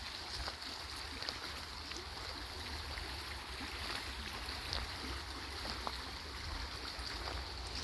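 Steady rush of flowing water, as of a stream, with a low rumble underneath.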